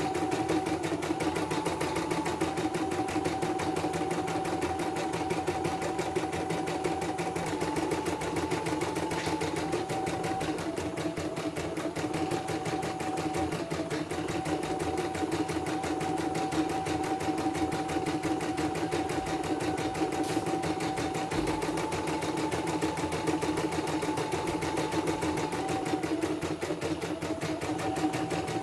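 CNY portable embroidery machine stitching a design: a rapid, steady run of needle strokes over a motor whine that steps up and down in pitch now and then.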